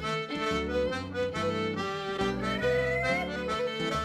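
Instrumental Breton dance music: a rhythmic tune over a regular low bass pulse, with the melody sliding upward about two seconds in.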